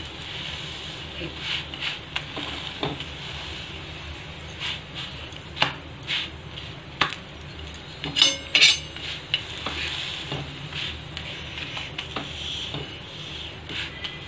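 A thepla frying in oil on an iron tawa sizzles steadily while a steel spatula presses and scrapes it against the pan. The metal makes scattered clicks, with two sharper clinks about eight seconds in.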